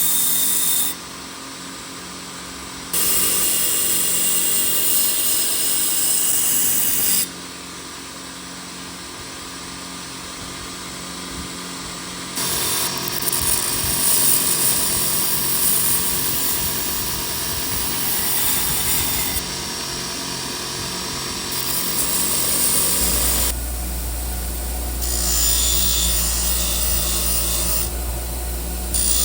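Power tool work on a forged knife, heard as a run of short clips that cut in and out abruptly. A steady low hum joins near the end.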